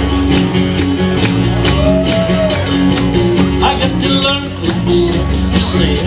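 Live country music on acoustic guitars: a steady strummed rhythm with bass notes under a picked melody line.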